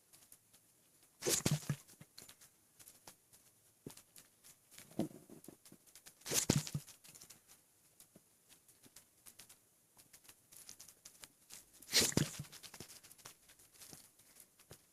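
Hiccups from a man whose stomach is overfull from eating and drinking too much water: three sharp hiccups about five seconds apart, with faint small ticks between them.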